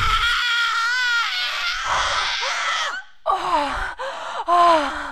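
A person's high-pitched wordless voice crying out: one long wavering cry for about three seconds, then a run of short cries that rise and fall, with brief gaps between them.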